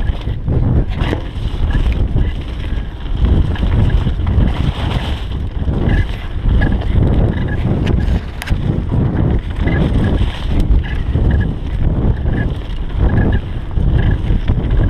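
Mountain bike descending fast on a dirt trail: wind buffeting the microphone over a steady rumble of tyres on dirt, with frequent rattles and knocks from the bike over bumps.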